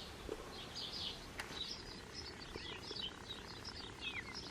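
Small birds chirping and twittering over a low background hiss, with one downward-sliding call near the end and a single faint click about a second and a half in.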